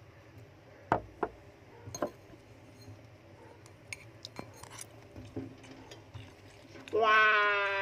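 A pet rat pawing and pulling at a clear plastic bag: scattered soft plastic crinkles and taps, with sharper ones about a second and two seconds in. Near the end a person's voice holds a hummed tone, louder than the crinkling.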